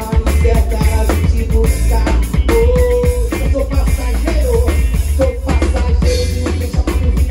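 Live band music heard from the stage: a Waldman Turbo 2.0 electric bass playing a heavy, steady low line under a drum kit and a lead vocal, in an upbeat groove.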